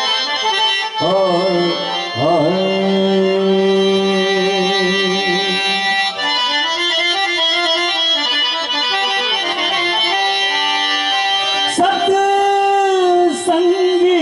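Bhajan music: a harmonium holding long, wavering melody notes over tabla accompaniment, with slides up into new notes about one and two seconds in.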